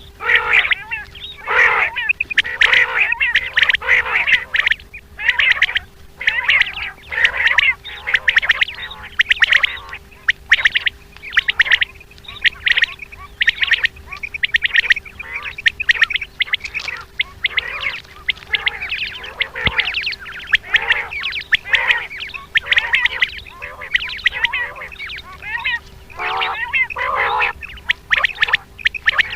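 Quails calling in short, raspy bursts, repeated over and over in quick clusters.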